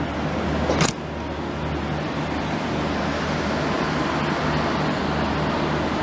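Steady low hum and rumble of a passenger train's coaches standing at a station platform, with a sharp click a little under a second in.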